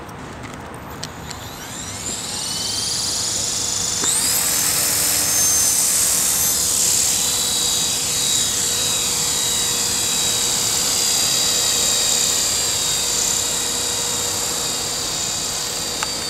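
E-sky Honey Bee King electric RC helicopter spooling up: the motor and gear whine rises in pitch over the first few seconds, then settles into a steady high-pitched whine with rotor blade noise as it hovers and climbs.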